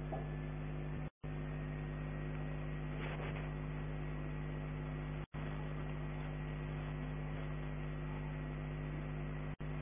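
Steady electrical mains hum in the recording, with a light hiss, that cuts out briefly three times: about a second in, about five seconds in, and near the end.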